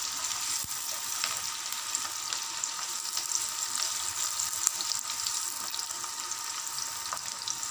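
Sliced onions sizzling in hot oil in a non-stick wok, with scattered small pops, as they are stirred with a spatula. The onions are frying toward light brown.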